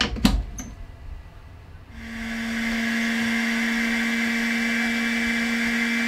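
Benchtop microcentrifuge: the lid clacks shut, then about two seconds in the motor starts and comes up within a second to a steady, loud whir over a hum. It is spinning the boiled cheek-cell and Chelex sample to pack the solids at the bottom of the tubes.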